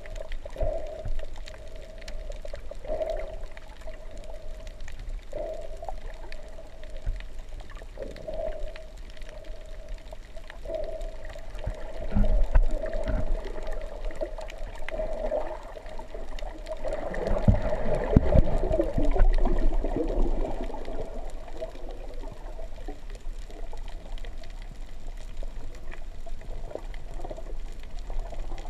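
Muffled underwater water noise picked up by a camera in its housing: a steady hum that swells every few seconds, with louder, rumbling gurgles about twelve seconds in and again from about seventeen to twenty seconds in.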